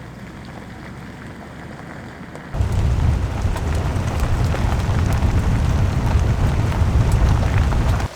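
Land Cruiser driving on a forest road with a steady low rumble. About two and a half seconds in, the sound jumps suddenly to a much louder rumble with crackling, like tyres on gravel and debris, and it cuts off abruptly near the end.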